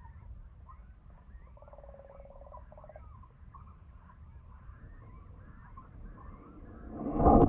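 Muffled sound of a camera sitting half in shallow water: a steady low rumble of water with faint chirps, and a short buzzing pulse about two seconds in. Near the end comes a much louder rush and knocking as the water is stirred against the camera.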